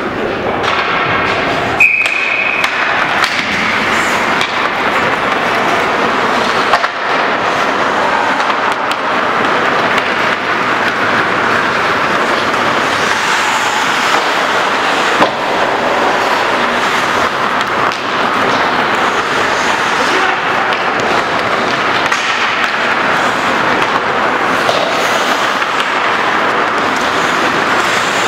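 Ice hockey game noise in an indoor rink: a steady rush of skates scraping the ice and echoing arena noise. A few sharp stick-and-puck clacks come now and then, and a short, high referee's whistle sounds about two seconds in.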